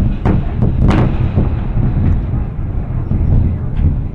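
Sonic booms from the 2013 Chelyabinsk meteor: a few sharp bangs in the first second and a half over a continuous low, rolling rumble.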